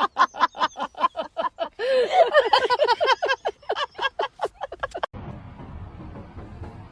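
A fast run of short, pitched vocal sounds, several a second with pitch sliding up and down, breaking off abruptly about five seconds in to a steady low background rumble.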